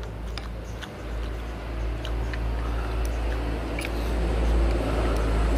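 Fork and spoon clicking and scraping lightly against a plate while eating, over a low rumble that swells from about a second in toward the end.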